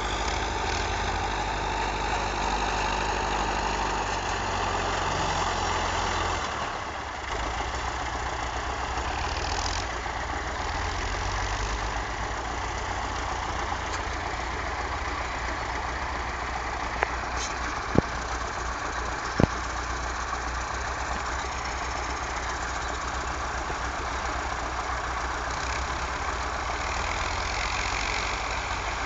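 Farm tractor's diesel engine running steadily while pulling a disc harrow, its pitch and level shifting briefly about a quarter of the way in. Three sharp clicks come close together past the middle.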